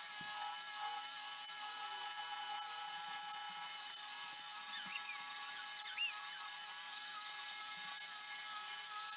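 Handheld electric polisher with a foam pad running steadily against a car's paint: an even, high-pitched motor whine with several fixed tones that holds without change.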